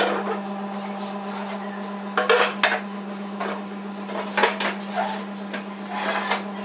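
Wooden folding camp chair being set down on a tile floor and unfolded: a string of hard wooden knocks and clacks as the slatted seat and legs swing open and hit the floor, with a cluster of them about two seconds in, over a steady low hum.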